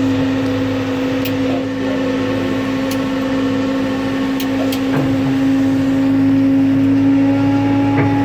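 Pushback tug running with a steady, constant-pitched drone, with a few faint ticks over it.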